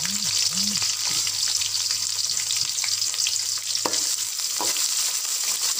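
Chopped onions sizzling in hot oil with tempered spices and curry leaves in a metal wok, a steady frying hiss. After about four seconds the metal spatula clicks against the wok a couple of times as the onions are stirred.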